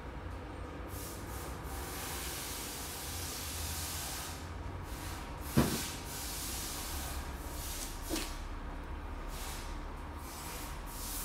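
Workshop background: a steady low hum with intermittent hissing, and a single sharp knock with a brief ringing about halfway through, followed by a fainter knock a few seconds later.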